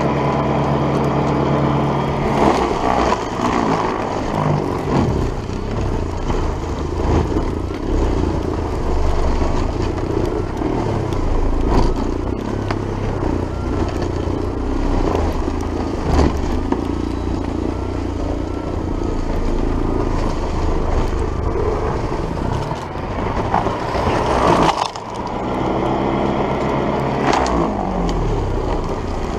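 Old MTD 3/21 snowblower converted to a high-current electric motor, chewing through deep snow and throwing it. The motor starts with a steady whine, turns into a rough, noisy churn as the auger bites in, briefly drops about 25 seconds in, then whines again. Under this load the motor pulls nearly 400 amps.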